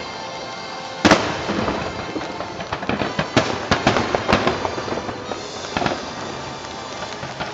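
Fireworks display: aerial shells bursting over continuous crackling, with one loud bang about a second in and a quick run of sharp bangs between about three and four and a half seconds in.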